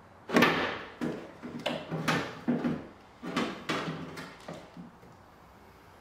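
Hotpoint washing machine motor unit being worked and slid out of its mounting on the plastic tub: a run of scraping knocks and clunks over about four seconds, then it stops.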